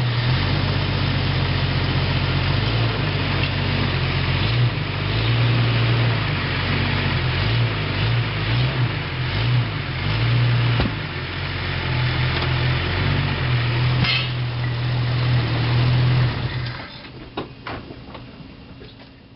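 An engine or motor running steadily with a low, wavering hum, stopping about seventeen seconds in; a few faint knocks follow.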